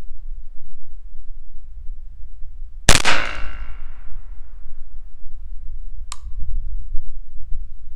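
A single .22 LR rifle shot from a Ruger 10/22 about three seconds in, a sharp crack with a short echoing tail. About three seconds later comes a fainter, sharper click.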